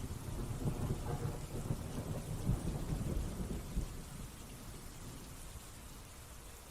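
Irregular low rumbling and soft knocks of handling noise as parts and the circuit board are moved about on the workbench. It settles to a faint hiss after about four seconds.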